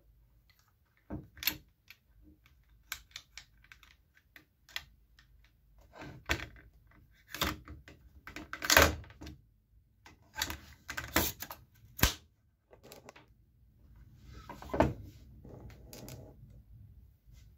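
Irregular clicks, rattles and knocks of plastic and metal as a KOBB KBZ90 electric nail and staple gun is handled and staples are loaded, its magazine slid open and closed. A few louder clatters come about halfway and near the end.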